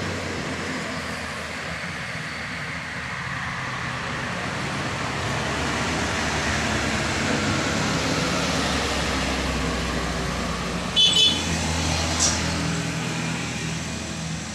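Traffic passing on a road: a coach and then a light truck driving by, with the engine rumble swelling as the truck goes past. About eleven seconds in a vehicle horn gives a short double toot, the loudest sound.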